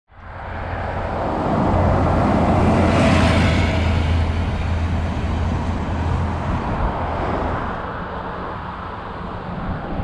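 Road traffic on a wide multi-lane street: a vehicle goes by close, loudest about three seconds in, and then the traffic noise eases off.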